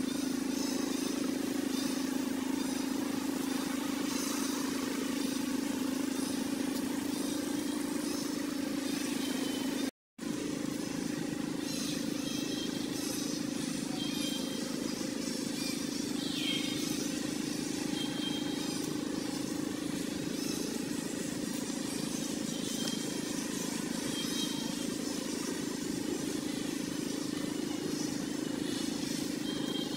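Steady outdoor background with a low mechanical hum, like distant motor traffic, and short high chirps every second or two. The sound cuts out for an instant about ten seconds in.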